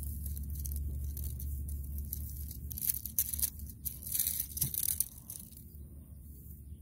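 Dry leaves and grass crackling and rustling, a quick run of small crunches for a couple of seconds in the middle, over a steady low hum.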